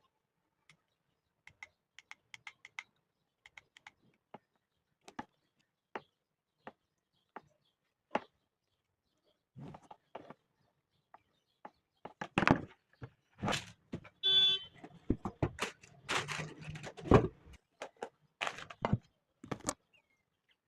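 Handling noise from unboxing a hair straightener: scattered light clicks and taps, then a busier run of knocks and rustling in the second half, with one brief pitched tone partway through it.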